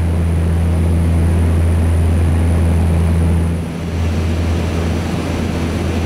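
Steady low drone of an airplane's engines heard from inside the passenger cabin, dipping briefly a little past halfway.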